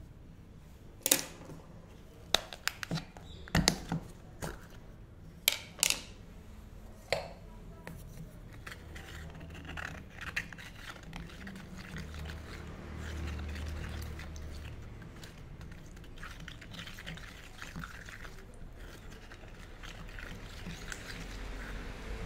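Several sharp clicks and knocks of a hand tool on soft clay slabs over the first seven seconds, then a wooden stick stirring and scraping thick, wet clay slip in a small plastic cup, a soft squelching and scratching that runs on to the end.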